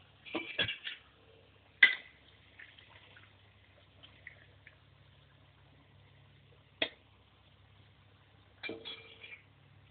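Metal spoon knocking and scraping against a steel pan of hot oil with ghee and cumin, in a few short clusters: a clatter about half a second in, a sharp knock about two seconds in, another near seven seconds, and a short clatter near nine seconds.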